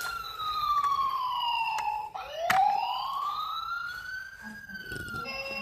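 Toy police car's electronic siren sounding a slow wail, falling and then rising again in pitch. There is a sharp click about halfway through, and the wail cuts off just before the end.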